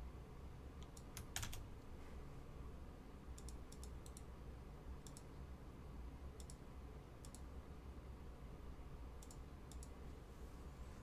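Scattered light clicks, single and in small clusters, over a low steady hum.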